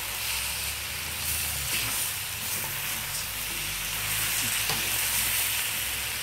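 Lamb and vegetables sizzling and frying in a hot wok while a spoon stirs and turns them.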